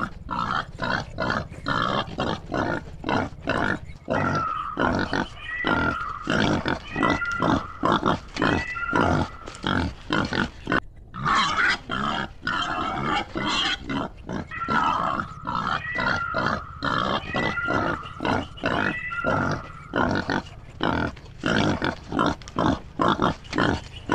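A group of wild boars and pigs grunting rapidly and repeatedly, several grunts a second. Stretches of higher, drawn-out squealing come in twice, for several seconds each time.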